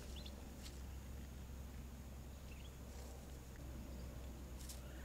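Quiet outdoor background: a steady low hum with a couple of faint, short high chirps and a few soft clicks.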